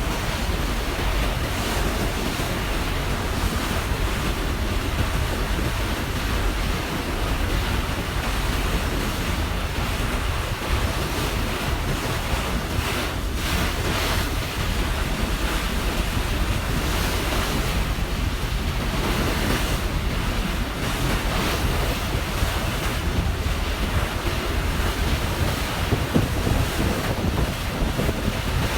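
Steady wind buffeting the microphone and water rushing past a moving ferry, over a continuous low rumble.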